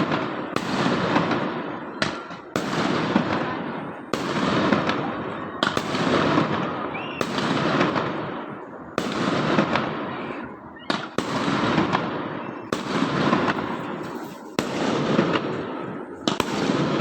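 Fireworks going off one after another, a sharp bang about every second and a half, each followed by a long rumbling echo that fades before the next.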